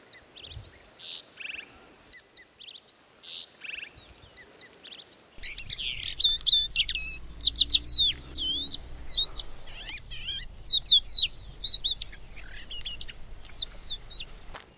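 Wild birds singing: short repeated chirps at first, then quick, dense whistled phrases with rising and falling notes from about five seconds in. A low steady rumble comes in underneath at the same point.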